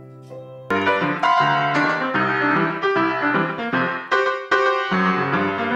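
Background piano music: soft held notes, then a little under a second in it switches abruptly to loud, fast, busy piano playing.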